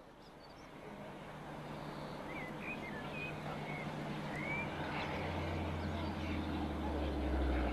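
Low steady drone of an approaching diesel locomotive's engine, growing louder from about five seconds in, with a few birds chirping earlier.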